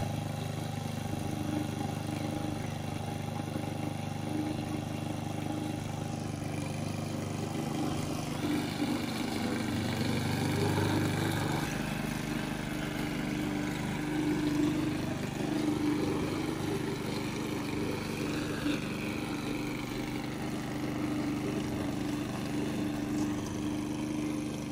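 A steady engine hum with a constant pitch that wavers slightly now and then.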